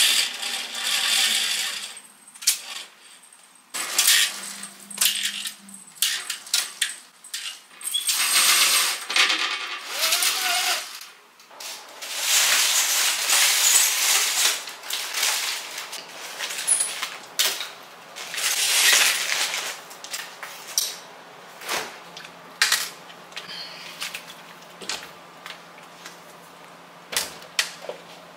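Household handling noises in quick succession: rustling, clicks, clinks and knocks of things being moved, unpacked and put away. A faint steady hum comes in about two-thirds of the way through.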